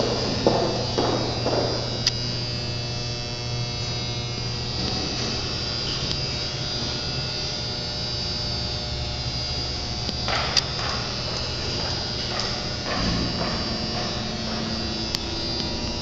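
Steady low electrical hum with a few footsteps in the first two seconds, and a few sharp clicks later on.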